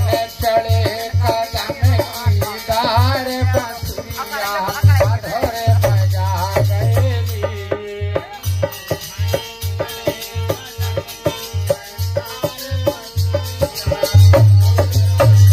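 Live Indian folk music: a harmonium and a singing voice over a steady drum beat, with rattling hand percussion. The voice sings wavering melodic lines in the first half, and the drum gets louder near the end.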